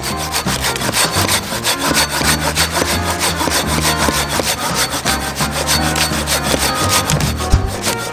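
Silky Gomboy coarse-tooth folding pull saw cutting back and forth through a thick weathered driftwood log, about 25 cm across, in quick, even rasping strokes.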